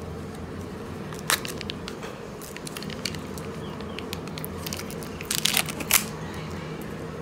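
Clear plastic lid being pried off a small plastic container: scattered clicks and crackles of the flexing plastic, then a quick run of louder snaps near the end as the lid comes free, over a steady low hum.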